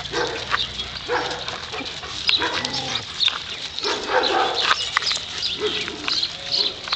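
Dogs giving short pitched calls at irregular intervals.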